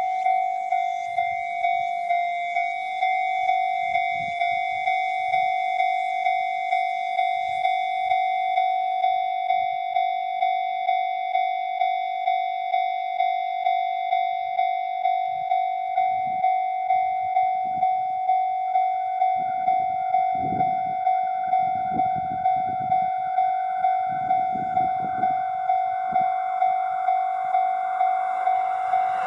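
Japanese railway level-crossing warning bell ringing in a steady rhythm of about three strikes every two seconds. A train's approach grows audible beneath it in the last several seconds.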